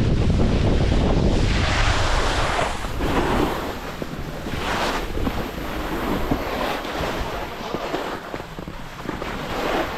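Wind buffeting an action camera's microphone during a fast downhill run, heavy at first, with the hiss and scrape of edges carving across groomed snow swelling with each turn.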